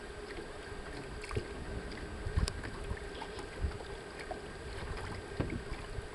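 Wind on the microphone and water moving against a boat as a sailing canoe slides across a lake, with a few short knocks scattered through.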